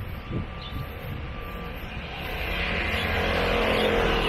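A motor vehicle passing close by, its noise building over about two seconds to a peak near the end, then fading.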